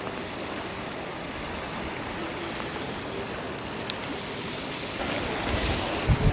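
Steady rushing of strong wind and wind-driven waves on a river, with a single sharp click about four seconds in. Near the end, gusts begin to buffet the microphone with a low rumble.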